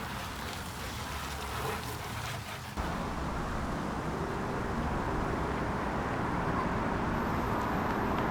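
Steady outdoor background noise with a low rumble. About three seconds in it changes suddenly and becomes a little louder.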